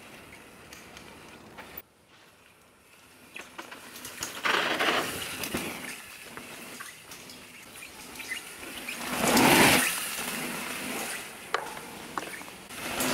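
Downhill mountain bike riding a dirt trail: rushing noise of tyres on dirt and air past the microphone, swelling loudest about four and a half and nine and a half seconds in.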